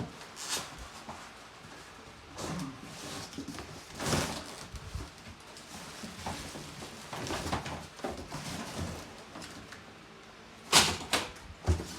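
Unpacking noises as a large box and its packaging are opened and handled: scattered rustles and scrapes, with two sharp knocks near the end.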